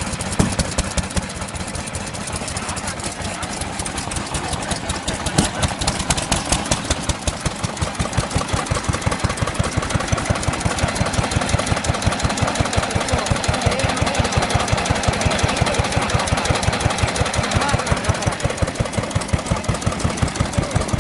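Early-Showa Kubota Type F single-cylinder stationary engine running steadily, with a quick, even beat of firing strokes that grows a little louder and more distinct a few seconds in.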